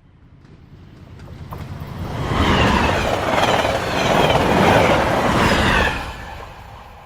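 Train passing by: the rumble swells over a couple of seconds, stays loud for about three and a half seconds, then drops away quickly and fades.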